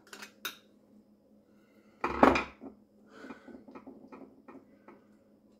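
Clicks and clatter of metal and plastic drain fittings being handled and worked loose at a garbage disposal under a kitchen sink. A loud clunk comes about two seconds in, followed by a run of lighter clicks.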